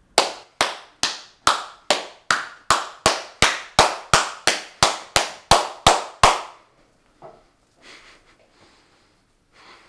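One person's slow handclap: about seventeen single, evenly spaced claps, a little under three a second and slightly quickening, stopping about six seconds in.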